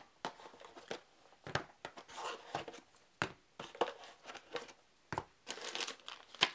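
Plastic bags of game pieces crinkling as card decks and bagged components are lifted from a cardboard box and set down on a wooden table, with several sharp taps as pieces land.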